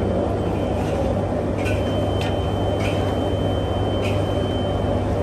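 Steady low mechanical hum and rumble, with a thin high whine coming in about two seconds in and a few faint clicks.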